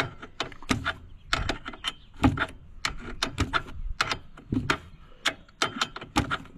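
Hand tools working the metal seat brackets of a garden tractor: a run of sharp, irregular clicks and clacks, several a second, some coming in quick clusters.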